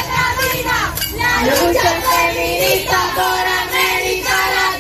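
Young women's voices singing a protest chant together, with held notes that rise and fall.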